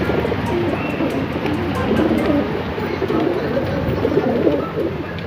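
Many racing pigeons crowded in wire crates, cooing over one another in a dense, continuous chorus.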